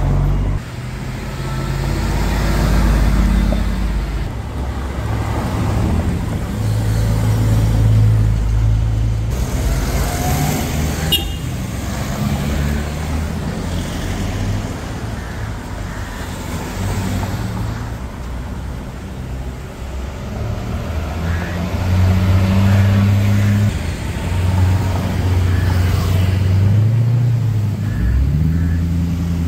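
Mercedes cars, vintage and sports models, driving past one after another, their engines running at low revs, with the pitch shifting as each car goes by.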